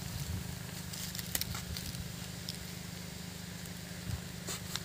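Quiet outdoor background: a steady low hum with a few faint, short clicks.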